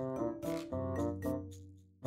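Background music: a light tune of short, decaying notes over a held low bass note.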